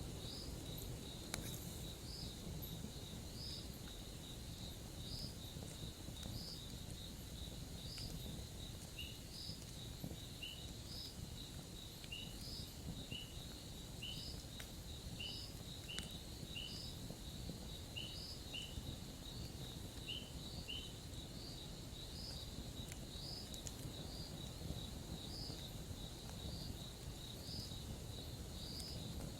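Crickets trilling steadily with short chirps repeating about once a second, over a constant low outdoor rumble. A few faint crackles come from a campfire.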